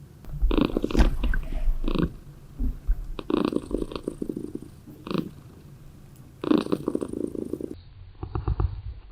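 Norwegian Forest cat purring close to the microphone, in pulsing bursts of about a second with short breaks between them.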